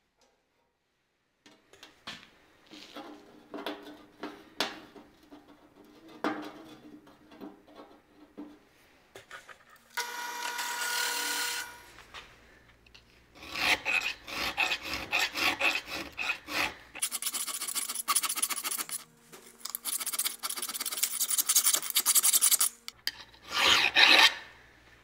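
Steel being hand-filed in a bench vise: bursts of rasping file strokes, after some light clinks and knocks of metal parts being handled.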